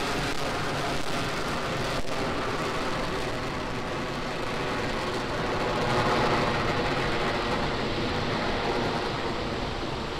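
Falcon 9 first stage's nine Merlin engines during the climb just after liftoff: a steady, dense rumble of rocket exhaust noise.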